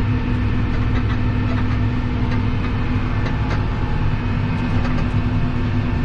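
New Holland TM165 tractor engine running steadily under load while driving a topper, heard from inside the cab.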